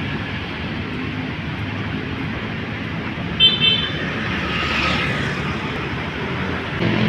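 Steady road traffic noise from passing cars. About three and a half seconds in there is a short, high-pitched beep, which is the loudest moment.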